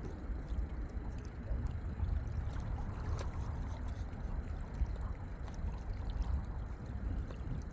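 Lake water lapping and gurgling at the shore, over an uneven low rumble of wind on the microphone.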